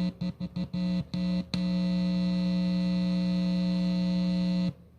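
Loud electrical buzz from an audio rig being switched on, stuttering rapidly on and off, then holding steady for about three seconds before cutting off abruptly.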